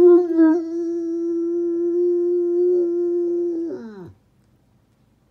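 Saint Bernard howling one long note held at a steady pitch, which drops off and ends about four seconds in.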